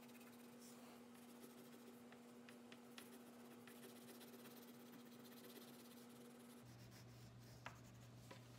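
Faint scratching of a teal oil pastel rubbed back and forth across paper as a mask area is colored in, with a steady low hum underneath that shifts lower near the end.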